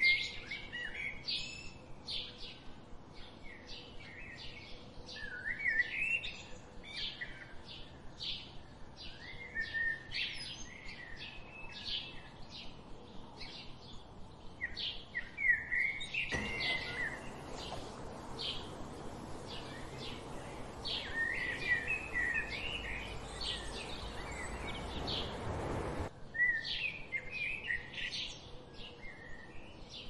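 Several songbirds chirping and singing in quick, overlapping short notes and trills. From about halfway through, a steady hiss of background noise runs under the birdsong for about ten seconds and then cuts off suddenly.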